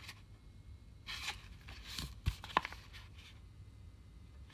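Pages of a picture book being handled and turned: a few brief paper rustles, with two sharp clicks a little past two seconds in.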